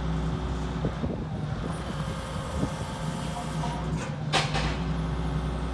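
Forklift engine running steadily as the truck carries its load, with a brief hiss about four seconds in.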